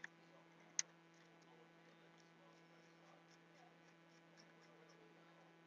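Near silence over a steady electrical hum, broken by two sharp metal clicks, one at the start and one just under a second in, then faint scattered ticks as a copper heat-pipe heatsink and its screws are handled on a computer logic board.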